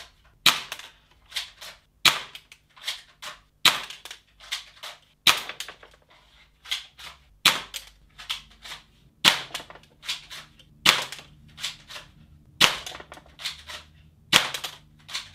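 Airsoft pistol firing BBs into a paper target, a sharp snap about every second and a half to two seconds, nine shots in all, with quieter clicks and taps between the shots.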